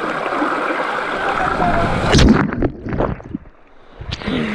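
Rushing stream water close to the microphone, then a few splashes and knocks about two seconds in, and another sharp splash near the end.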